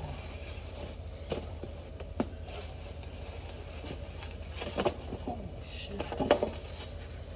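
Skateboard rolling, its wheels giving a steady low rumble, with several sharp clacks and knocks of the board, the loudest about six seconds in.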